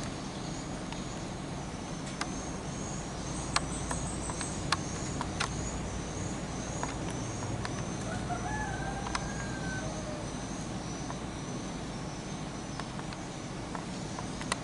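Open-air background with a distant rooster crowing once, about eight seconds in, over a high chirp that repeats steadily and a few sharp clicks.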